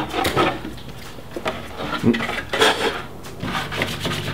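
Light plastic clatter and tapping from a clear Lexan RC truck body shell being handled and turned over on a workbench, a quick run of small knocks and clicks.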